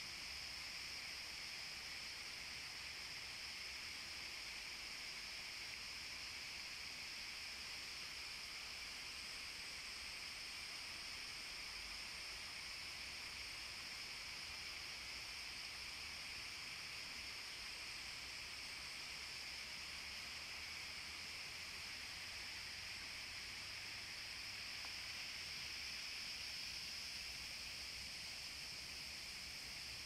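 Steady, high-pitched insect chorus in woodland, an unbroken buzz that holds its pitch throughout.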